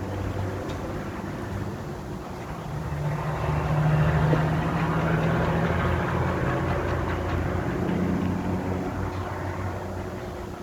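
Engine hum of a passing motor vehicle, low and steady, swelling about three seconds in and fading away near the end.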